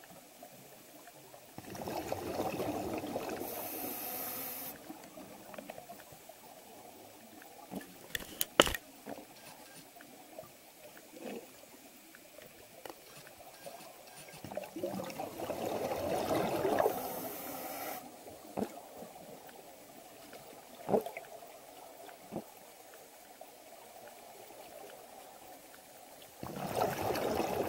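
Scuba regulator underwater: exhaled bubbles burbling past in three bursts about twelve seconds apart, with a few sharp clicks in between, the loudest a little over eight seconds in.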